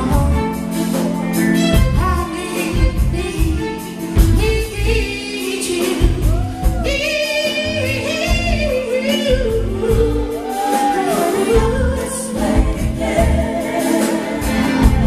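Live band playing a song, with a male lead singer singing a wavering, held melody over drums, electric bass and keyboard.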